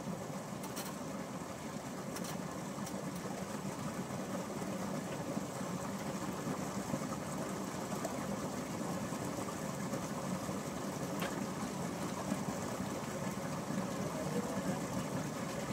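A steady, low motor drone with a faint hiss, broken by a few faint clicks.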